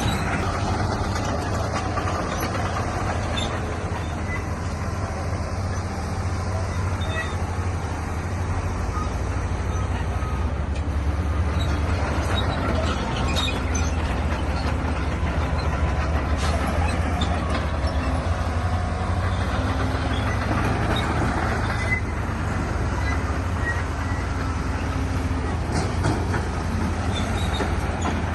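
Heavy diesel earthmoving machinery running steadily, a deep engine drone that grows stronger about nine seconds in, with a few faint clanks.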